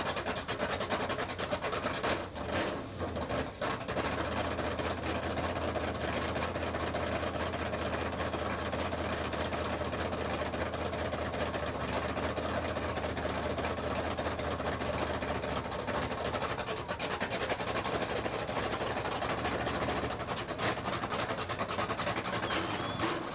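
Monster truck engine running as the truck creeps forward, a low steady drone under an even rushing noise.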